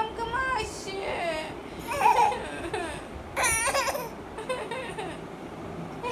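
A toddler's high-pitched vocalizing: a string of short squeals and babbling sounds whose pitch slides up and down, with brief pauses between them.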